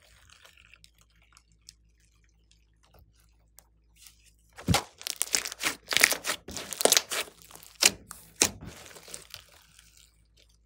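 Large mass of glossy slime, mixed with makeup and clay, being squeezed and stretched by hand: faint sticky crackles at first, then from about halfway through a run of loud sharp pops and crackles as it is pulled apart, dying away near the end.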